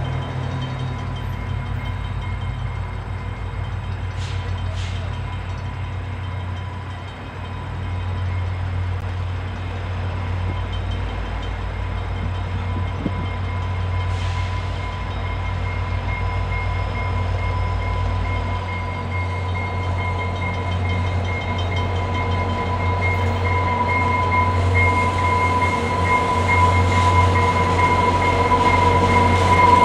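Two EMD F40PH-2D diesel locomotives with 16-cylinder two-stroke engines lead a passenger train past at slow speed. The engines run with a steady low drone that grows louder as they come closer, and a steady high whine strengthens as they pass near the end.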